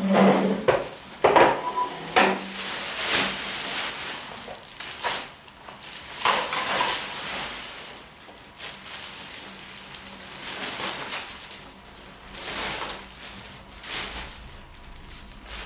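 Table being cleared by hand: irregular knocks, clatter and rustling as paper cups and popcorn are gathered up and dropped into a plastic bag, loudest in the first couple of seconds.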